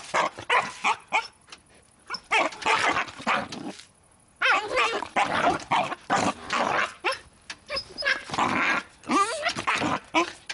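Six-month-old Belgian Malinois puppy barking and growling in irregular bursts during early bite-work training, with a short pause about four seconds in.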